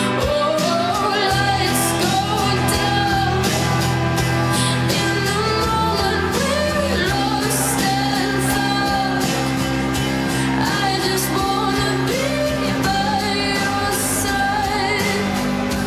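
Pop song playing, a singing voice over a band with held bass notes and a steady beat.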